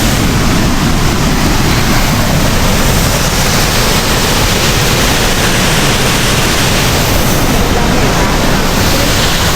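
Shiraito Falls, a broad curtain of many thin falls, rushing loudly and steadily up close: a continuous roar of falling water with no letup.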